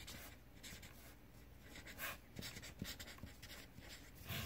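Pen writing on a paper note: faint, quick scratching strokes, one after another, as words are written out by hand.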